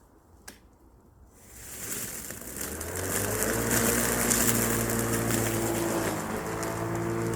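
A click about half a second in, then a lawn mower spinning up: its pitch and loudness rise over about two seconds before it settles into a steady run.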